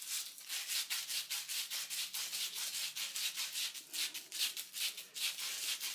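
Sandpaper wrapped around a copper pipe, rasping in quick, even back-and-forth strokes, several a second, as the pipe is twisted inside it to scour the tarnish off the copper.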